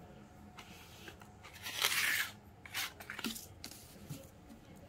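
Paper scratch-off lottery ticket torn from the book along its perforation: one short rip about two seconds in, followed by a few soft rustles and clicks of paper being handled.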